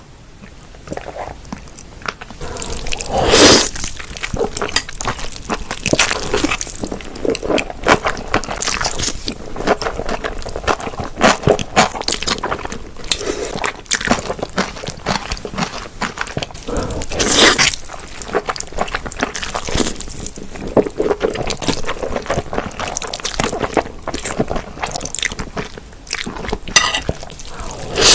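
Close-up wet chewing and slurping of spicy cold noodles: continual moist smacking and crunching of cucumber, with two louder, longer slurps, one a few seconds in and one past the middle.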